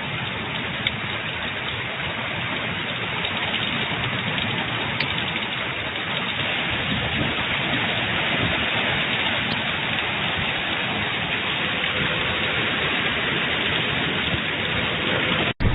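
Rain falling steadily, an even hiss that breaks off for an instant near the end.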